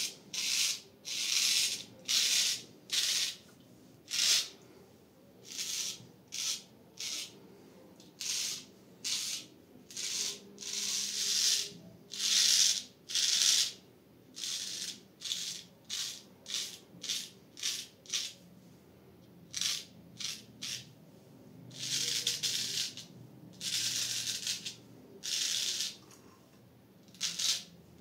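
Full-hollow-ground straight razor scraping through lathered stubble in short strokes, one after another at an irregular pace, each under a second long.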